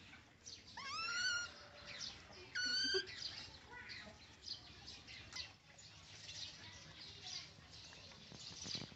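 Baby macaque giving two high-pitched wavering cries, about one and three seconds in. After that come scratchy rustles and light taps as the monkeys clamber about in a woven bamboo basket.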